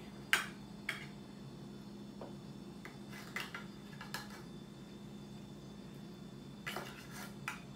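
A few scattered light clicks and taps, the sharpest about half a second in and a small cluster near the end, over a steady low hum.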